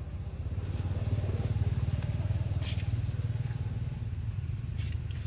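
Low engine rumble, like a motorbike's, swelling about a second in and easing toward the end, with a few faint clicks.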